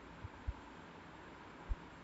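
Quiet room tone: a steady faint hiss with three soft, short low thumps, about a quarter second, half a second and near the end.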